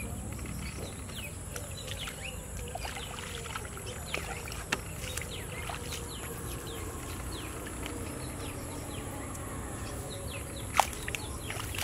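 Outdoor field ambience: a steady high-pitched insect drone with many short chirps. Beneath it are splashing and rustling as bare feet and hands move through shallow muddy water and wet grass, with one sharp click near the end.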